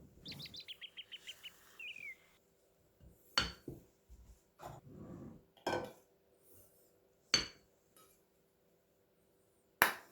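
A bird sings a quick run of about ten short notes and ends on one falling note. Then four sharp clinks of kitchenware are struck roughly two seconds apart, the last the loudest.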